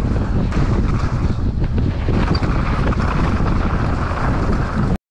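Wind buffeting the microphone and tyre rumble from a mountain bike riding fast downhill on a dirt trail, a loud rough roar that cuts off suddenly near the end.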